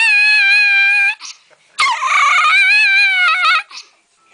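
A large dog howls in two long, high calls. The second call starts about a second and a half in, rises, then wavers and breaks off. It is the dog's protesting, talking-back howl at something it doesn't like.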